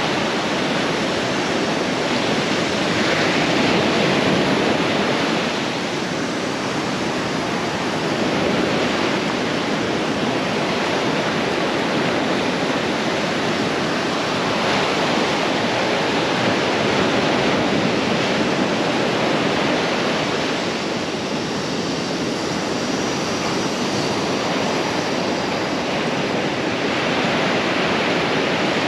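Ocean surf breaking and washing up the beach: a steady rush of white water that swells and eases every several seconds as each wave comes in.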